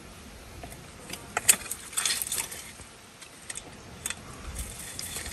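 Metal bowl clinking and scraping as it is handled, with a sharp clink about a second and a half in, a short clatter around two seconds, and a few lighter clinks later.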